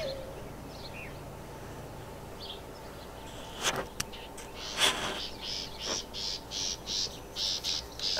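A green scrub pad rubbing butyl tape residue off the painted metal side of a school bus: a couple of louder scrapes about halfway through, then quick back-and-forth scrubbing strokes, about two or three a second.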